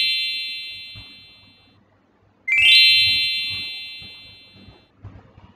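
Chime sound effect: a quick rising run of bright bell-like notes that rings and fades over about two seconds. One chime is fading out, and a second identical one plays about two and a half seconds in.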